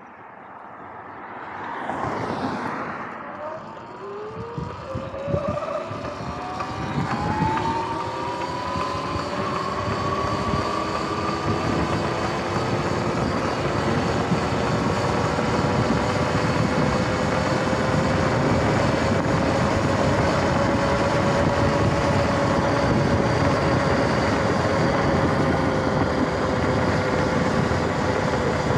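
Sur-Ron X electric dirt bike's motor whine rising in pitch as the bike accelerates, then holding nearly steady at cruising speed over a rush of wind and tyre noise. There is a brief rush of noise about two seconds in.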